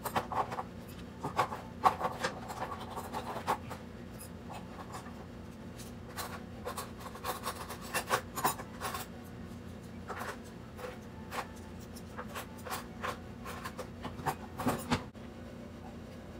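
Metal kitchen utensils and dishes clinking and clattering in irregular bursts as they are handled and put away, over a faint steady low hum.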